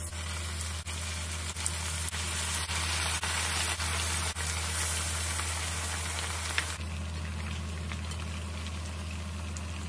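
Marinated pork rib pieces frying in hot oil in a pan: a steady sizzle, with a few brief clicks in the first half.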